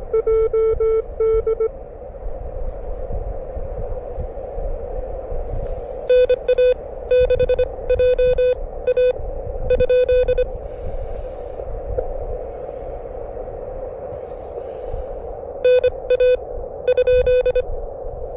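Morse code (CW) from an amateur radio transceiver at about 25 words per minute: a single steady-pitched tone keyed in quick dots and dashes, in three runs, near the start, in the middle and near the end. Between the runs a steady hiss of band noise comes through the receiver, and wind rumbles low on the microphone.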